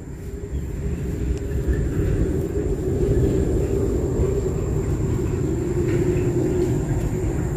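A motor vehicle passing on the nearby road: a steady engine and tyre rumble with a low hum that swells over the first few seconds, holds, and begins to fade near the end.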